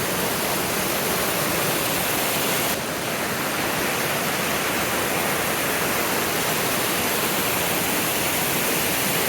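Steady rushing water, as of a stream or waterfall, loud and even, with a slight drop in level about three seconds in.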